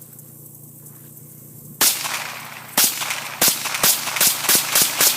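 Ruger 10/22 semi-automatic .22 LR rifle firing a rapid string of about eight shots, starting nearly two seconds in. The first two are about a second apart, then the shots come faster, roughly three a second. The rifle cycles smoothly, with no misfires.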